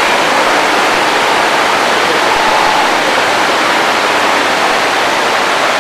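Steady, even rushing noise, like heavy hiss, with no breaks or distinct events.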